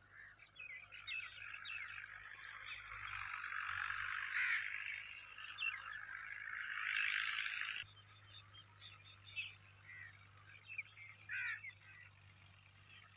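Dense chorus of many birds chattering and chirping at once, building up and then cutting off abruptly about eight seconds in. After that only scattered single bird calls are left.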